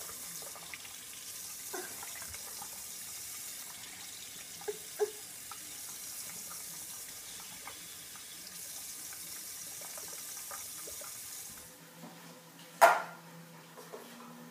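Bathroom tap running a thin stream into a ceramic sink: a steady hiss of water. It stops near the end, followed by a single sharp knock.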